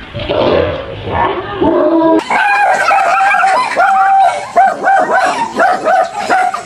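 Dog barking and yapping in alarm, quieter and lower for the first two seconds, then a rapid run of short, high yaps at about three a second.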